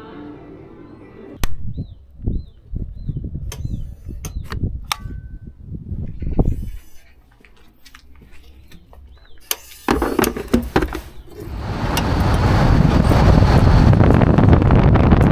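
Wind buffeting the microphone outdoors: uneven gusts and knocks in the first half with a few faint short chirps, then about three-quarters of the way through the wind noise swells into a steady loud rush.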